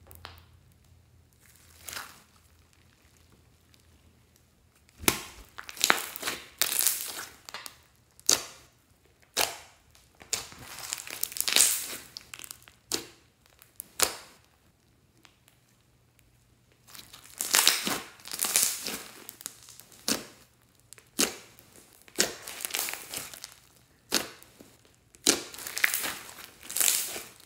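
Hands kneading, squeezing and poking floam slime (clear glitter slime mixed with foam beads): after a few quieter seconds, irregular bursts of sticky, crackly noise with short quiet gaps between them.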